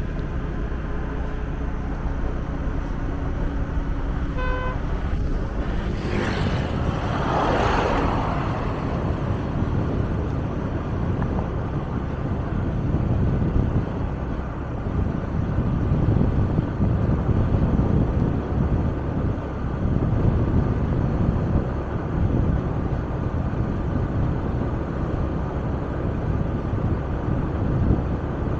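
Steady low road and wind noise from a vehicle driving along a paved road. A short horn toot sounds about four seconds in, and another vehicle passes close by a couple of seconds later.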